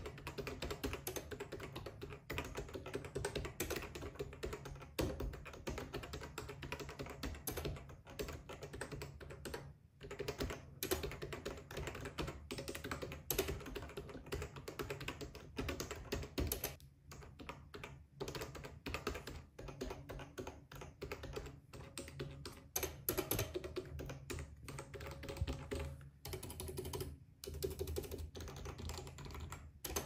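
Keys of a Sony BKE-2010 editing keyboard with stock dome switches being typed on fast with both hands: a dense run of short key clacks, broken by brief pauses a few times.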